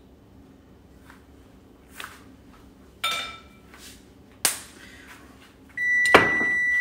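Metal kitchen utensils clinking and knocking against dishes a few times, one clink ringing briefly. Near the end a loud, steady electronic beep starts and holds, with another sharp knock just after it begins.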